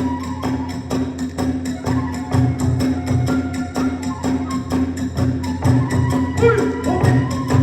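Kagura hayashi ensemble playing: small hand cymbals clashing in a fast, even beat over a big drum, with a bamboo flute melody.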